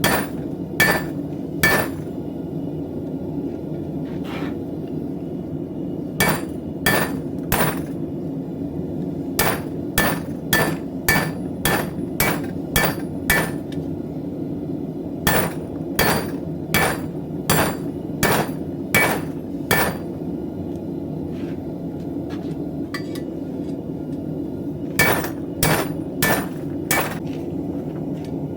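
Blacksmith's hand hammer striking knife steel on an anvil, in bursts of several blows about two a second with pauses of a few seconds between bursts, over a steady low rushing noise.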